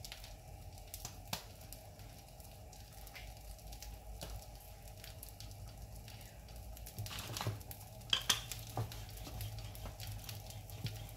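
Faint scattered taps and light scrapes of hands flouring and shaping paratha dough on the counter, over a low steady hum. The handling sounds get busier and louder a few seconds past the middle.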